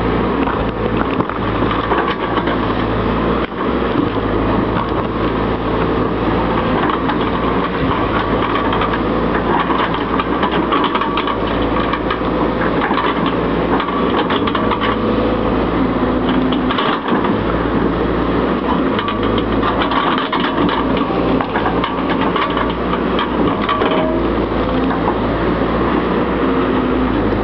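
Tracked excavator's diesel engine running steadily under load as its ripper tooth tears into stumps and soil, with frequent cracks and crunches of roots and earth breaking.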